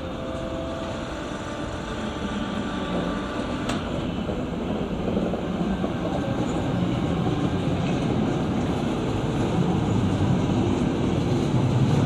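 DB Class 425 electric multiple unit rolling slowly over points and curved track, a steady rumble of wheels on rail that grows louder as it comes closer. There are faint thin wheel squeals in the first few seconds and one sharp click about four seconds in.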